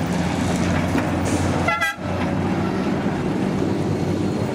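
Steady low hum of trams and road traffic going by, with one short horn toot about two seconds in.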